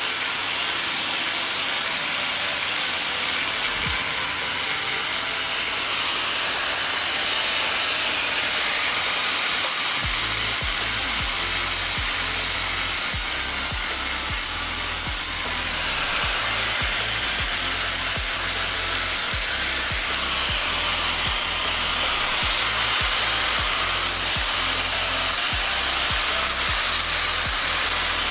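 Steady rough scraping of a tool working a hard surface, as in sanding or grinding. Background music with a steady bass beat comes in about ten seconds in.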